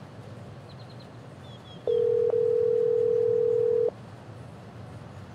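Telephone ringback tone: one steady two-second ring as an outgoing call waits to be answered.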